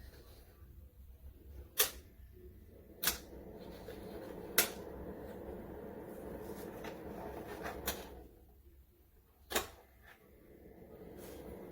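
BLACK+DECKER 1500 W portable space heater: five sharp clicks of its controls being switched, over the heater's steady fan hum. The hum drops away after a click about eight seconds in and comes back after the next one.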